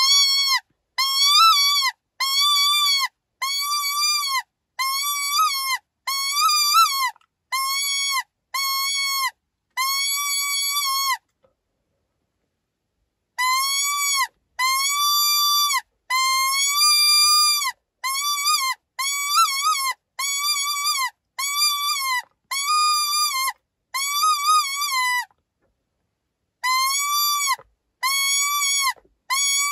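Animal-in-distress predator call for coyote hunting: a string of loud, high wailing cries, each under a second long, repeated about once a second. The cries come in runs of about ten, with a short pause between runs.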